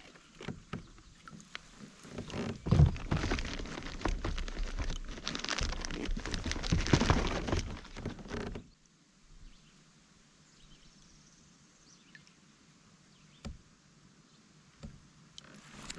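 Handling noise in a kayak: a run of knocks and rustling lasting about six seconds, with one sharp thump near its start, then quiet apart from a single click.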